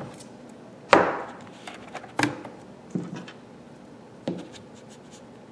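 Player-button cords being plugged into the jack sockets of a small Arduino turn-timer box: a few separate sharp clicks and knocks, the loudest about a second in, with smaller ones near two, three and four seconds in.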